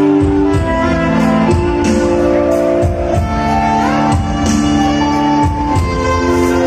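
Live amplified music from a stage: a violin playing a melody over keyboard backing with a steady beat, heard through the PA speakers.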